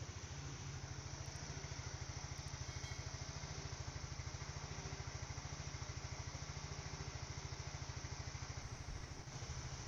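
An engine idling steadily, a low hum with a fast, even pulse.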